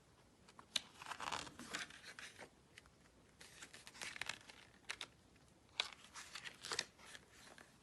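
Faint paper rustling and crinkling with a few sharp clicks: pages of a picture book being handled and turned.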